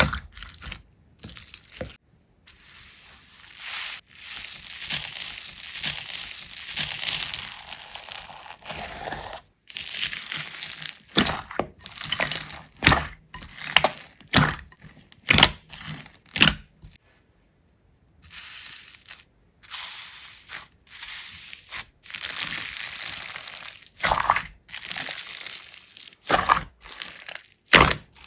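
Slime being squished and pressed by hand, giving irregular crackling, crunching and sticky popping sounds. These come in a dense stretch, then in separate sharp bursts with brief silent breaks.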